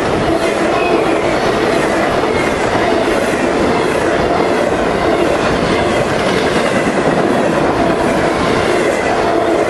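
A freight train of empty intermodal cars (a 'baretable') passing close by at speed: the steady loud rumble of wheels running on the rails, with a faint high ringing throughout.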